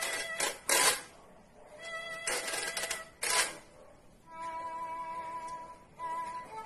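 Spatula scraped back and forth across a metal cheese grater, played like a violin bow in a few rasping strokes. Then a steady held note for about two seconds near the end.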